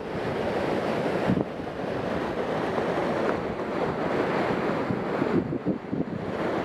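Steady rushing of river water, with wind buffeting the microphone and a few brief knocks.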